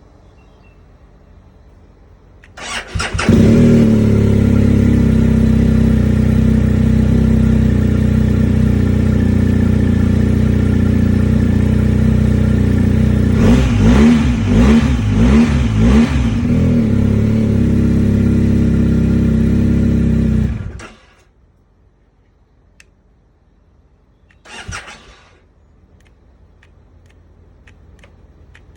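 BMW GS Adventure motorcycle engine cranked on the starter, catching after a brief moment and running steadily, with a few throttle blips partway through, then cutting off suddenly. A short burst of sound follows a few seconds later. The bike has a hard-starting fault, but this attempt starts.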